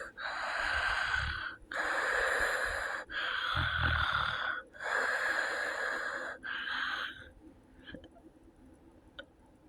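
Snoring of a person with sleep apnea: five noisy, breathy snores in quick succession, with no clear pitch, then the breathing goes quiet about seven seconds in.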